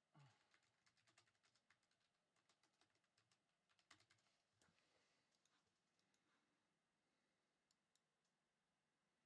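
Near silence with faint typing clicks on a computer keyboard, quick and dense for about the first five seconds, then only a few scattered clicks.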